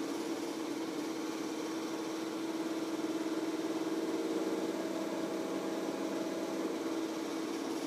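Aquarium pump humming steadily, one even low hum with no change in level.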